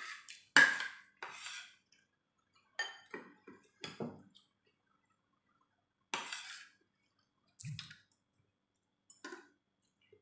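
Spoon and fork clinking and scraping against a dinner plate in separate short strokes every second or two. The sharpest clink comes about half a second in.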